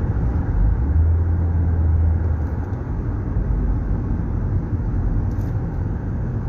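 Steady low drone of a car cruising at about 45 mph, heard inside the cabin with the air conditioning running. There is a stronger low hum for about a second and a half, starting about a second in.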